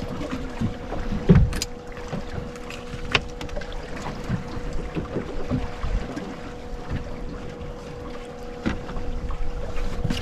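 Handling noise aboard a small fishing boat: scattered knocks and bumps, the loudest about a second and a half in, over wind and water noise and a steady faint hum.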